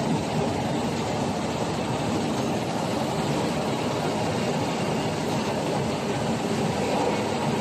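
A 1000 mm high-speed flexographic printing machine running, its plastic film web travelling over the rollers at about 72 metres a minute. It makes a steady, even mechanical noise.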